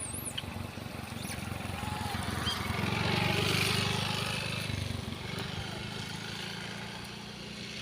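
A motor vehicle passes on the road: its engine note and tyre hiss swell to a peak about three seconds in, then fade away. A few high, squeaky chirps sound at the very start.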